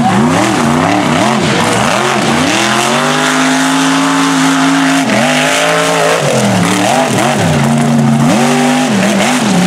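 Mega truck engine revving hard, its pitch swinging up and down again and again as the throttle is worked, then held at high revs for about two seconds in the middle before the rapid revving resumes.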